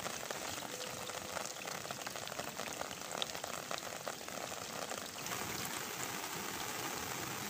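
Heavy rain falling steadily: an even, dense hiss of countless drops.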